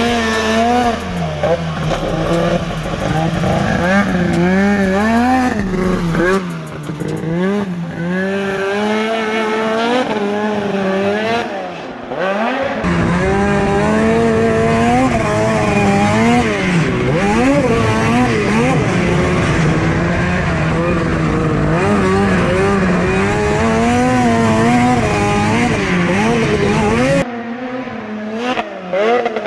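Snowmobile engine being ridden hard around a track, its pitch rising and falling over and over as the throttle is worked through jumps and turns. It drops off and runs quieter near the end.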